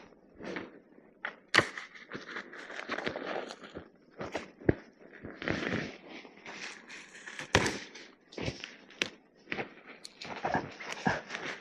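Irregular sharp knocks and clicks mixed with rustling, as of things being handled or moved about, scattered through the whole stretch without a steady rhythm.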